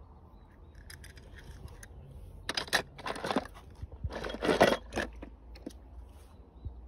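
Small hard objects being handled: several short scrapes and rustles, the loudest about halfway through, with a few light clicks.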